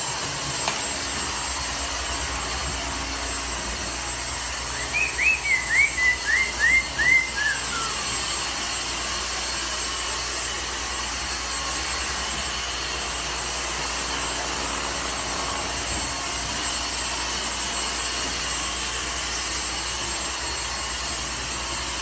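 A bird calling a quick run of about eight short down-slurred notes, the last ones falling lower, over a steady hiss-like background noise.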